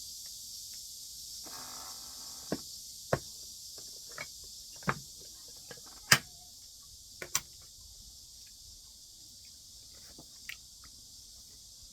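Chopsticks and spoon clicking against dishes during a meal: a scattering of short sharp taps, the loudest about six seconds in, over a steady high-pitched hiss.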